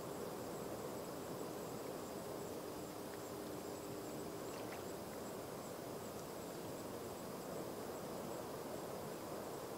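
Faint insects trilling at a steady high pitch over a constant low hiss of distant noise.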